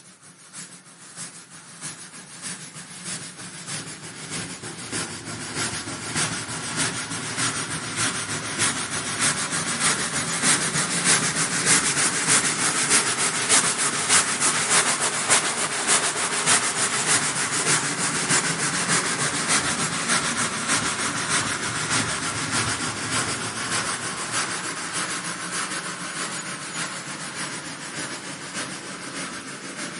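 Steam train running by, a rapid rhythmic beat of chuffs and clatter with hiss. It grows steadily louder over the first dozen seconds or so, peaks about midway, then slowly fades as it draws away.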